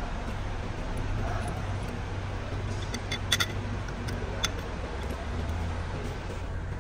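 Sharp metallic clicks from a bracket and wiring being fitted to a diesel engine block: a quick cluster about three seconds in and one more click a second later, over a steady low hum.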